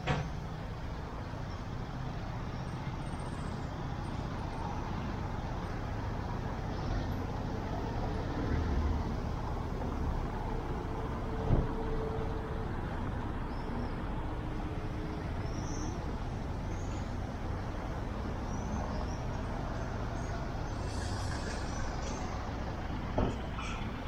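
Steady city street ambience: a low traffic rumble, with a short sharp knock about halfway through.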